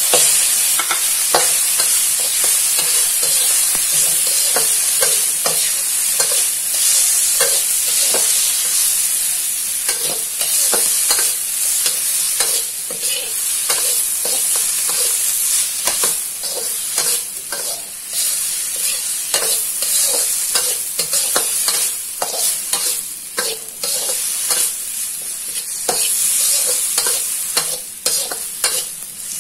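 Diced tomato and minced garlic sizzling in oil in a wok, with a metal spatula scraping and clinking against the wok over and over as it is stirred.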